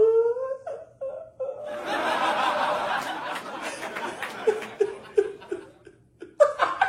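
A sung note fades out, then several people laugh, breaking into short rhythmic 'ha-ha-ha' bursts about halfway through.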